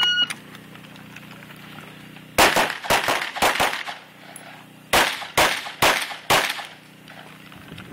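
A shot timer's start beep, short and high-pitched, followed after about two and a half seconds by rapid semi-automatic rifle fire. A quick string of shots comes first, then four more shots a little under half a second apart around five seconds in.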